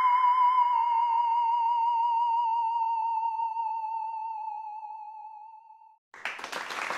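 A wavering electronic tone: one held note with a steady vibrato that sinks slightly in pitch and fades away about six seconds in. Applause starts just after it ends.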